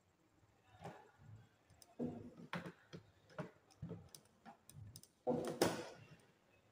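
Irregular clicks and taps as gloved hands work wires into the plastic terminal block of a single-phase energy meter, with a longer, louder burst of handling noise about five seconds in.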